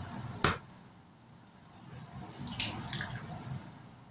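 An egg cracked open into a mixing bowl: one sharp crack about half a second in, then a couple of softer clicks and taps near the end.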